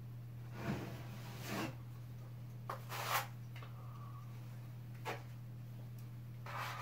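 Drywall knife scraping and spreading joint compound along a ceiling seam, in several short strokes, over a steady low hum.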